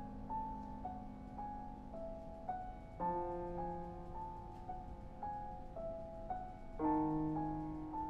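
Steinway grand piano playing a single-note melody, about two notes a second, over low sustained chords that come in about three seconds in and again near the end.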